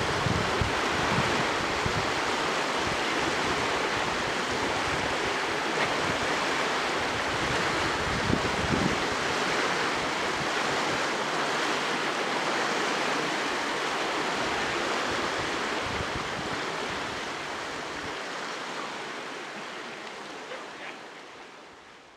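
Steady rushing of the Boyne River's flowing water, with wind buffeting the microphone in the first several seconds; the sound fades out near the end.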